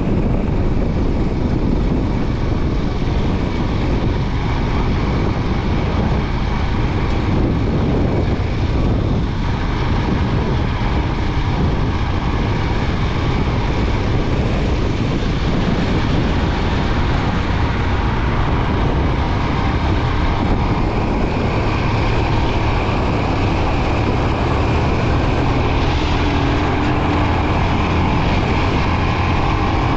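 Royal Enfield Himalayan 411's single-cylinder engine running steadily under way, mixed with rushing wind and road noise.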